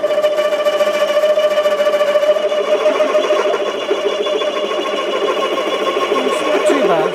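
Warco WM180 mini lathe running with a 16 mm twist drill turning in the chuck, boring through an aluminium block. It is a steady mechanical whine that turns rougher and chattering about two and a half seconds in as the drill cuts, with a brief drop in pitch near the end.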